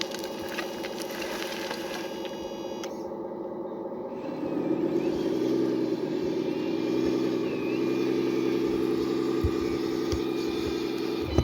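Radio-controlled scale hydraulic construction machine running: a steady motor and hydraulic-pump hum made of several tones. It grows louder about four seconds in, with a few short knocks near the end.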